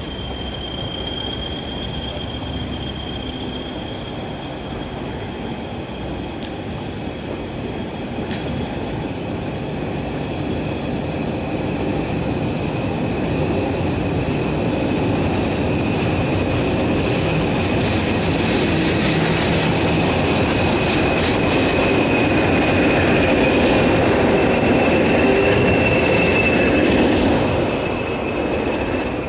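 Train of London Underground tube stock rolling past slowly, its wheels giving a steady high squeal over the rumble of the rails. Towards the end the English Electric Class 20 diesel locomotives at the rear come by, the sound growing louder and then falling away sharply as they pass.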